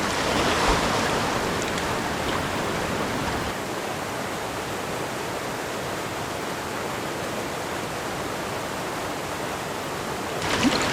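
Whitewater of a mountain river rushing steadily, a little louder in the first couple of seconds.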